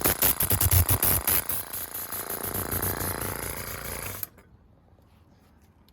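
Craftsman 283-1431 oilless piston paint sprayer running, very loud, with a rapid, even pulsing from its piston pump. It is switched off and stops abruptly about four seconds in. The owner is unsure whether this loudness is normal for such sprayers or comes from its age and dust inside.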